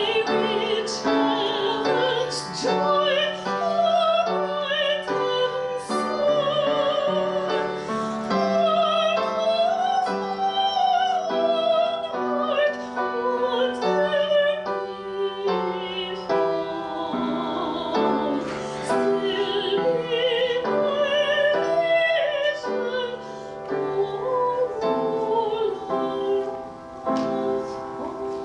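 A high voice, likely a woman's, singing a solo in classical style with marked vibrato, accompanied by piano.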